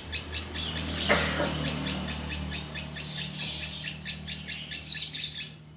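Green lovebird singing a long, fast run of short high chirps, several a second, with no break. A steady low hum lies underneath.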